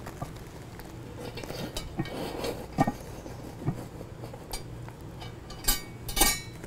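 Metallic knocks and clinks from a 12-inch Lodge cast iron Dutch oven and its wire bail handle as the pot is lowered onto charcoal: about five separate clinks, the loudest near the end.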